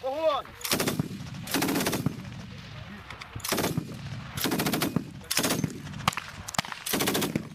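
DShK 12.7 mm heavy machine gun firing in about six short bursts of a few rounds each, spaced roughly a second apart.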